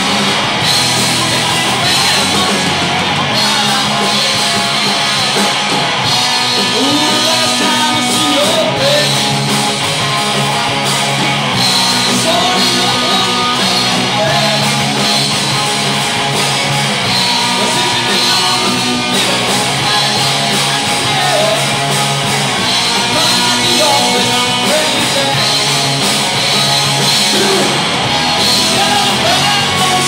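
Live rock band playing loudly through a bar PA: two overdriven electric guitars, bass guitar and a drum kit, with a voice singing at times.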